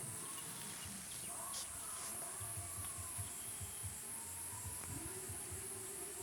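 Steady high-pitched insect chorus, crickets or similar, trilling without a break over a faint low rumble.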